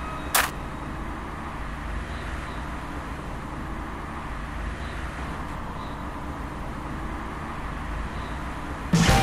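Steady low rumble of outdoor street ambience, with one sharp knock about half a second in.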